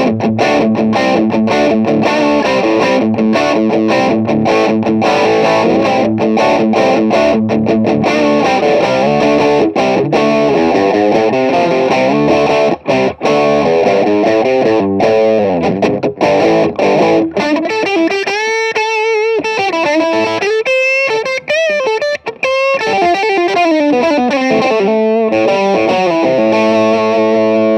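Electric guitar through a Marshall distortion pedal set for early-'70s hard rock: chopped, palm-muted chord riffing, then from about 18 seconds in a single-note solo line with bent, wavering notes. It ends on a held chord.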